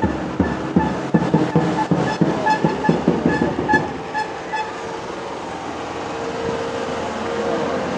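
Music with a fast, regular drumbeat and short repeated horn-like toots as a flag-waving truck caravan passes. After about four seconds it gives way to steadier vehicle and street noise with a single held tone.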